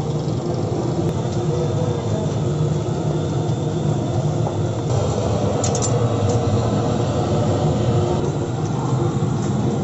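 Steady loud mechanical roar with a low hum, under a murmur of voices, with a few brief clicks about six seconds in.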